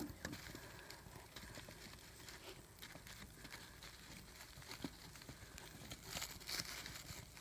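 Faint crackling of a small, struggling kindling fire of paper, cardboard and sticks in an outdoor stove's firebox: scattered light snaps and clicks, with a brief louder rustle about six seconds in.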